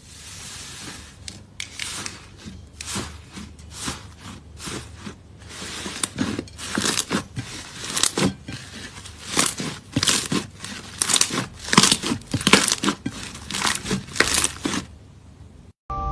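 Crisp crunching and crackling strokes, a crunchy play material being pressed, squeezed and cut by hand, coming irregularly about one or two a second and stopping just before the end.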